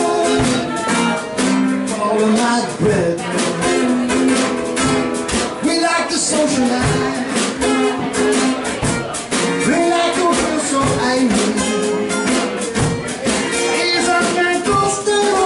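Live band music: an acoustic-electric guitar strummed over a drum kit keeping a steady beat.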